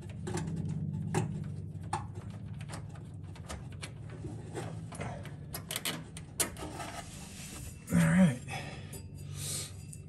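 Fingers turning the wing-nut adjuster on a Volkswagen Type 3's clutch cable, giving small, irregular metallic clicks and ticks over a low steady hum. A short grunt comes about eight seconds in.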